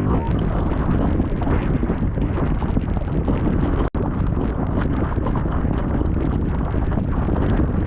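Strong wind buffeting the microphone in a heavy blow, a loud steady rumble that cuts out abruptly for an instant about four seconds in.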